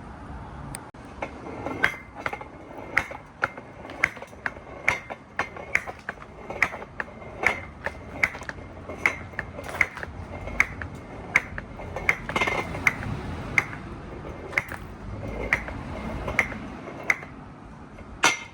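Marbles rolling down a multi-level marble run track with a steady rumble, clicking sharply about once or twice a second as they drop and knock at each turn of the slopes, each click with a short glassy ring.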